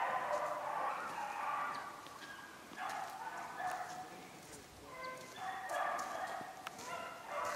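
A pack of beagles baying in chorus, several voices at once, in bursts of a second or two with short gaps between, the cry of hounds running a rabbit's trail.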